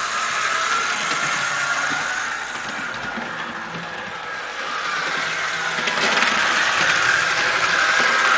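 HO-scale Mantua Tyco model locomotive running on the track: a steady whir of its small electric motor and wheels on the rails, fading for a couple of seconds in the middle and growing louder again near the end.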